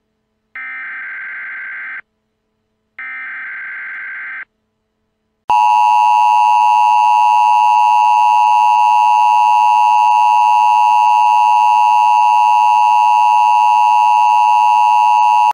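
Emergency Alert System (EAS) tones: two short buzzy SAME header data bursts, then about five and a half seconds in the loud, steady two-tone attention signal (853 and 960 Hz) that announces an emergency alert.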